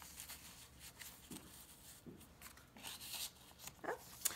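Faint rustling and light taps of paper and card being handled as tags and cards are slid in and out of paper pockets in a handmade journal, with one sharper click just before the end.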